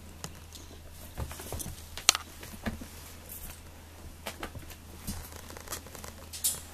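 A cat batting a small toy ball about on the floor: scattered light taps and scuffs, with one sharper click about two seconds in.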